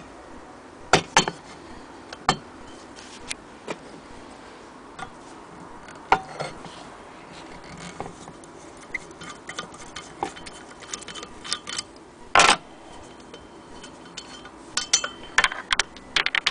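A screwdriver and hands working on the metal hand-crank wheel of an antique Willcox & Gibbs sewing machine, taking off its crank handle: irregular metal clicks, clinks and knocks, with a short scrape about three quarters of the way through that is the loudest sound.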